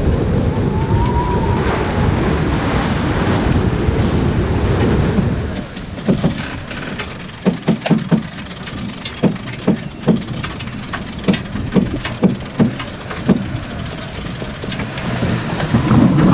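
Wind and choppy sea rushing over the microphone on a sailing yacht's bow. About five seconds in this gives way to quieter cockpit sound with irregular knocks and clicks, one or two a second, as the crew works the winches and sheets during a jibe. Near the end a loud rush of wind and water returns.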